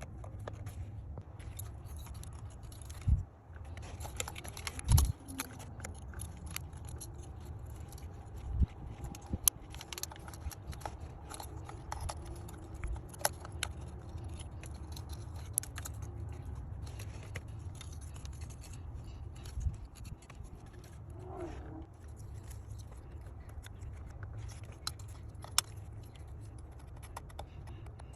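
Scattered light clicks and scrapes of hand tools being worked, with two heavier knocks about three and five seconds in, over a steady low hum.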